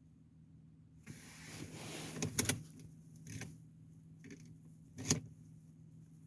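Handling noise: rustling that starts about a second in, with four sharp clicks spaced roughly a second apart, over a faint steady low hum.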